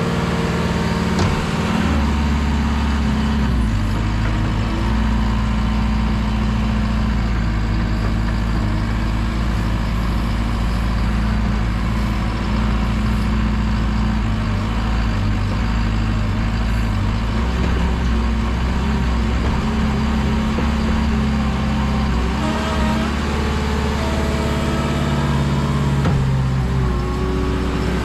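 JCB Teleskid skid steer's diesel engine running steadily as it works its bucket, scooping mulch out of a dump truck body. The engine note steps up and down a few times with the load.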